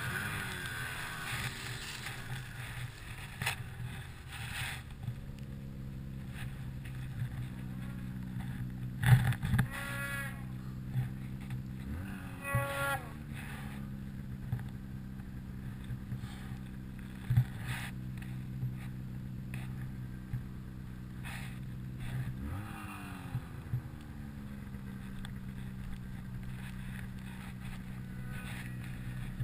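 Ski-Doo Summit 800 two-stroke snowmobile engine running under throttle through deep powder, its revs jumping up twice, about twelve and twenty-two seconds in, then sinking back. A few knocks stand out, the loudest about nine seconds in.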